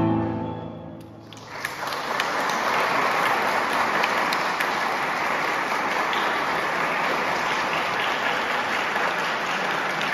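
A final grand piano chord rings out and fades away, then audience applause breaks out about a second and a half in and continues steadily.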